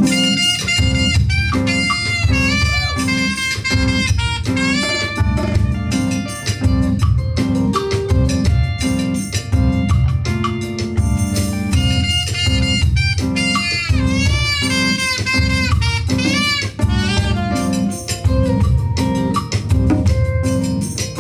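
A live jazz-fusion band playing an instrumental passage: saxophone and brass melody lines over keyboards, electric bass and a drum kit, with a steady driving rhythm.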